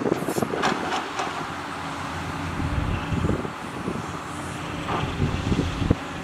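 Hydraulic excavators working, their diesel engines running steadily under load. Metallic clanks and clatter of buckets and tracks come in the first second, and one sharp knock comes shortly before the end.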